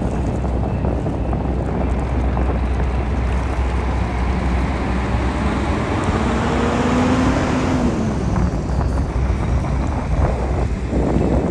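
Heavy diesel truck driving past close by, its engine note swelling and then dropping in pitch as it goes by, over steady wind noise on the microphone.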